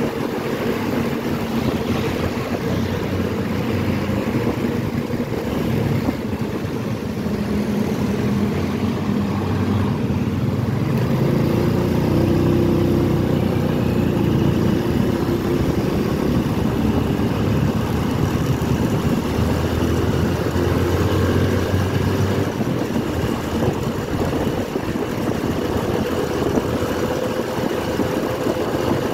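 Motorcycle engine running while riding, over steady road noise; the engine note rises and falls as the speed changes.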